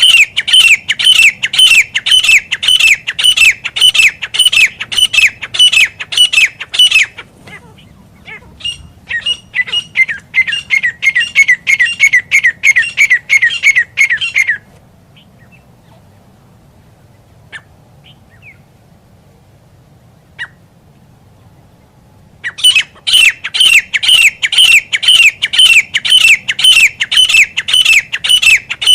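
Grey francolin calling, a rapid series of repeated high, squawking notes at about three a second, the kind of call used to lure francolins when hunting. The loud series breaks off about seven seconds in, continues more softly, then stops for about eight seconds before the loud calling resumes near the end.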